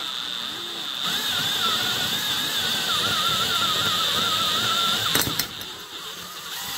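Cordless DeWalt 20V drill running steadily with a high whine, its bit cutting into the exhaust-port bolt hole of a chainsaw cylinder to drill out the stripped threads for a thread insert. About five seconds in it eases off with a few clicks and runs on more quietly.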